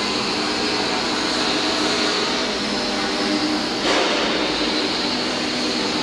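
JS series twin-shaft concrete mixer running with a steady mechanical hum and rumble, with a short burst of hissing noise just before four seconds in.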